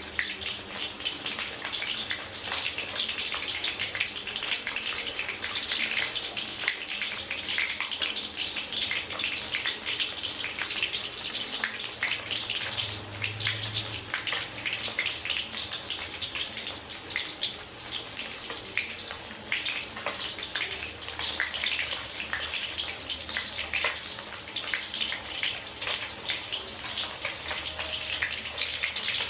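A whole fish and garlic cloves frying in hot oil in a pan: a steady, dense sizzle with fast fine crackling.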